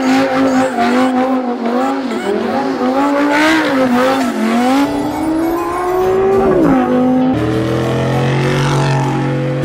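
Audi R8 sports car engine revving hard while spinning donuts, its pitch wavering and climbing, with tyres squealing. After about seven seconds the pitch drops and a pickup truck's engine takes over with a lower, steadier note.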